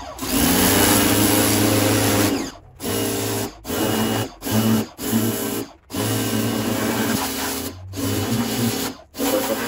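Electric pressure washer running, its motor hum and the water jet hissing against an alloy wheel and tyre to blast off loose, flaking paint. It cuts out briefly and starts again several times.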